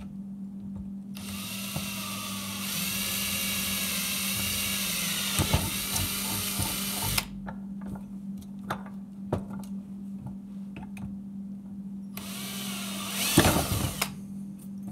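Cordless drill boring a hole through PVC pipe clamped in a vise: the motor runs for about six seconds, then a few handling clicks, then a second short, louder burst of drilling near the end.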